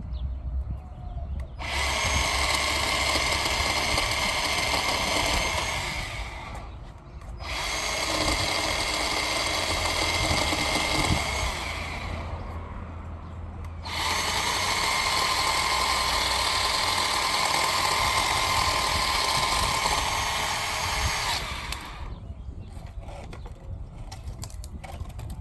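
Bauer 20-volt cordless 10-inch chainsaw's electric motor and chain whining in three long bursts of several seconds each, cutting small tree pieces, and stopping between bursts.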